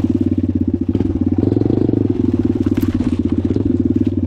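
Suzuki DR-Z dirt bike's single-cylinder four-stroke engine running at low revs with an even, pulsing beat, swelling briefly about one and a half seconds in as it picks up throttle.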